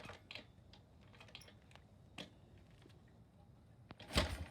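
Scattered light mechanical clicks, then near the end a loud kick of a Harley-Davidson Ironhead Sportster's kick starter, turning the engine over without it firing, because the ignition key is off.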